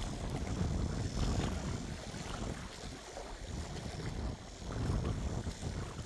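Seaside ambience: wind gusting and buffeting the microphone over the wash of the sea.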